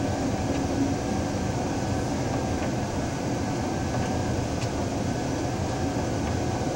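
Train running steadily on the rails, heard from on board: an even rumble with a few faint clicks.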